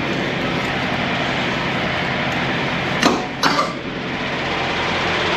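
Steady running noise of an idling semi-truck, with two sharp knocks about half a second apart around three seconds in.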